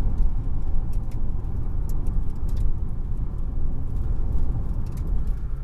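Steady low rumble of a car, road and engine noise heard from inside the cabin.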